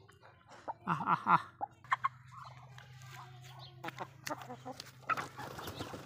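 Chickens clucking now and then among foraging Muscovy ducks, with scattered sharp clicks and a steady low hum through the middle.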